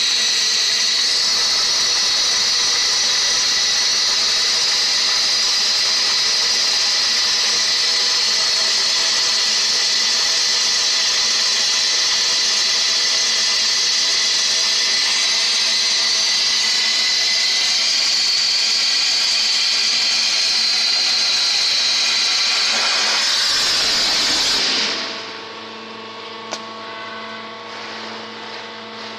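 High-pressure waterjet cutting a steel square tube: a loud, steady, high hiss of the jet through the steel. The hiss cuts off abruptly near the end as the cut finishes, leaving a quieter, steady machine hum with a few fixed tones.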